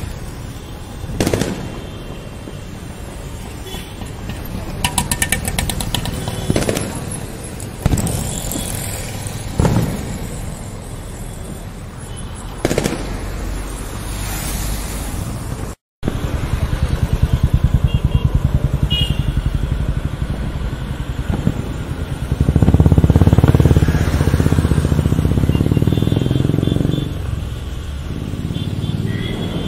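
Diwali-night street traffic with firecrackers going off. Several single cracker bangs and a rapid crackling string of crackers come in the first half. After a brief break in the sound, a motor vehicle's engine grows louder as it passes close, then eases off.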